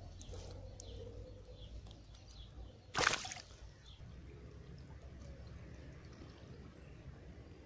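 A small traíra (wolf fish) released into pond water, hitting the surface with one brief splash about three seconds in.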